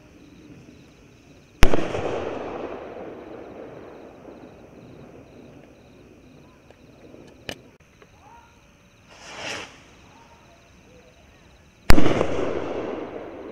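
Sky Traveler stick rockets firing. A sharp, loud bang with a rumbling echo that fades over several seconds, then a brief hissing whoosh of a rocket climbing, and about two seconds later a second loud bang as it bursts, echoing away.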